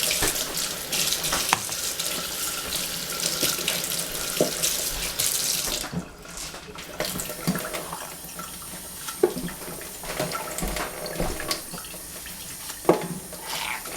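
Water running from a tap into a sink for about six seconds, then cut off, followed by scattered light knocks and clicks.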